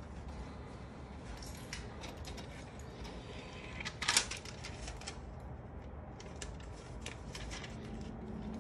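Scattered light clicks and rattles from a bank ATM's cash-deposit mechanism taking in and handling the notes, with the loudest burst about four seconds in, over a steady low hum.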